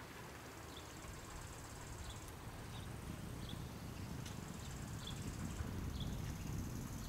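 Distant diesel rumble of a VT 98 Uerdingen railbus, growing slowly louder as it draws nearer. Over it, short high chirps repeat about once a second, and insects give a steady high buzz.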